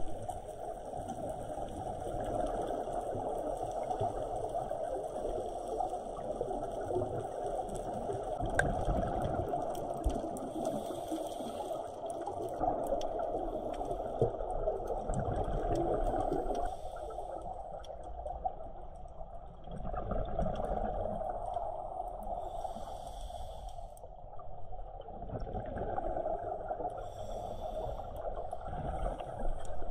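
Underwater sound of scuba divers breathing through regulators: muffled bubbling and gurgling of exhaled air that swells and eases every few seconds.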